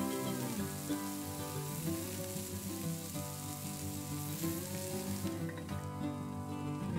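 Sliced eggplant and shiitake mushrooms sizzling in oil in a frying pan, stirred once. The sizzling drops away about five seconds in as the pan is covered with its steel lid, over acoustic guitar background music.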